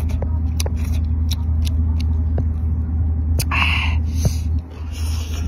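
Mantis shrimp shell cracking in the fingers as it is peeled: a handful of sharp snaps and clicks, with a short hissy rustle about three and a half seconds in, over a steady low rumble.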